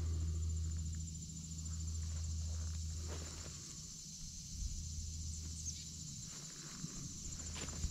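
Footsteps through dense forest undergrowth, with a steady high-pitched insect trill throughout and a low rumble that fades a few seconds in.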